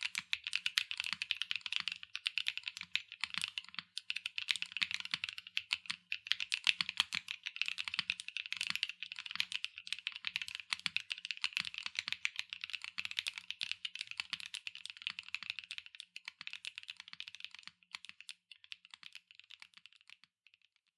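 Fast, continuous typing on a SAAG65 mechanical keyboard with JWK Chaosera Cupid linear switches, an aluminium plate, no foam and PBT/ABS double-shot keycaps. The keystrokes are dense clicks that thin out to a few scattered presses over the last few seconds.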